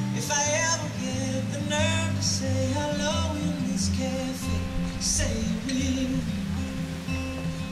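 Music: a song with a voice singing over acoustic guitar.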